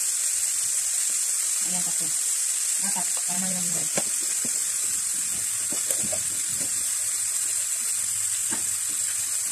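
Sliced chicken sizzling in hot oil in a frying pan: a steady, even hiss, with a couple of faint clicks a few seconds in.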